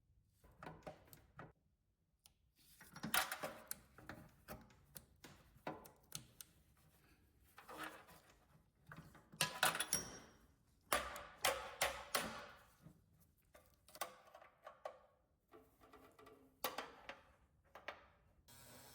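Irregular clicks, clacks and knocks, some loud, of hands working on a metal toolbox and its parts.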